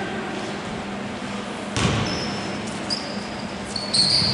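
Basketball bouncing on a hardwood gym floor in a large sports hall, with one sharp bounce about two seconds in. Short, high sneaker squeaks come in near the end.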